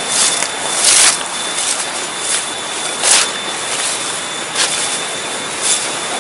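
Footsteps and rustling as people push through leafy undergrowth: a handful of short, irregular swishes over a steady hiss.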